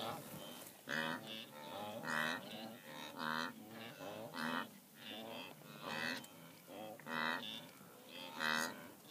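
Blue wildebeest (gnus) in a large herd calling: a steady run of loud, nasal grunting calls about one a second, with fainter calls from other animals overlapping between them.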